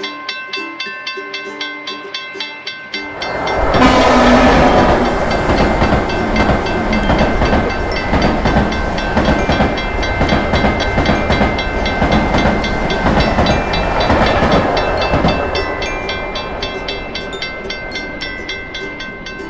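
Railroad crossing bell ringing rapidly and evenly. About three seconds in, a passing train comes in suddenly with a loud rumble and clatter of wheels on rail joints. The train fades away gradually over the last few seconds while the ringing goes on.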